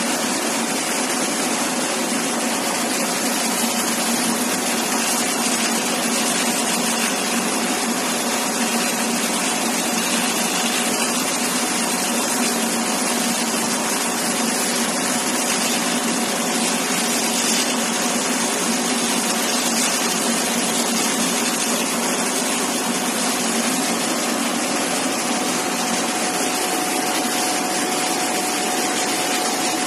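Double-head CNC laser cutting machine running while it cuts MDF: a steady rushing noise of its air assist and exhaust fan, with a faint steady whine underneath.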